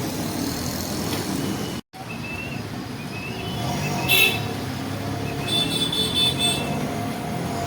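Steady road traffic noise, broken by a sudden brief cut just under two seconds in. In the second half, several short high-pitched tones sound over the traffic.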